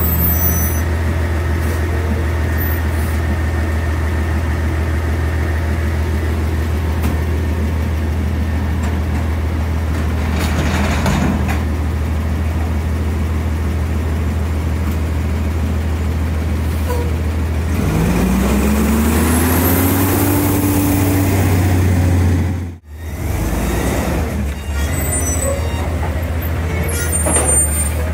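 2016 Autocar garbage truck with an Amrep front-loader body idling with a steady low hum. About two-thirds of the way through, the engine revs up with a rising whine. Just after that the sound drops out for a moment, then the truck runs on with a few short hisses near the end.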